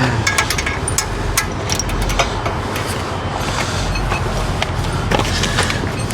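Hand socket wrench working a bolt on a Jeep's steering or suspension linkage: scattered, irregular metallic clicks over a steady rushing background noise with a low rumble.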